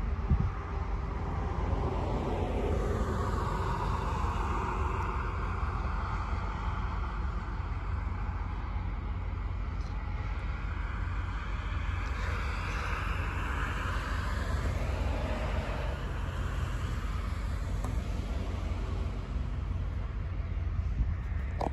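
A steady low rumble with a vehicle going past: its noise swells over several seconds, peaks in the middle and fades away.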